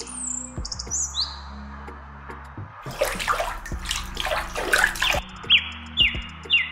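Water sloshing and splashing as a small metal bucket is dipped into a shallow pond and filled, about three to five seconds in. Birds chirp at the start, and near the end a bird gives short falling chirps about twice a second.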